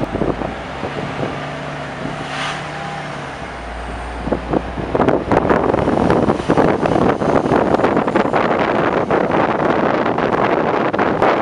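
Wind buffeting the microphone from a moving bus, over the low hum of the bus. About five seconds in the wind noise gets louder and rougher, with constant gusty crackle.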